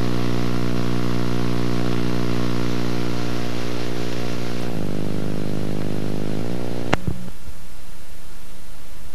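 Steady electrical buzz on an old videotape soundtrack. Its tone shifts about five seconds in, a sharp click comes about seven seconds in, and then only hiss remains.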